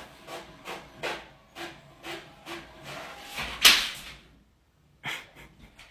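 A dog making a run of short vocal sounds, about eight in a row with gaps between them. The loudest is a breathy one about three and a half seconds in, and one more short sound comes near the end.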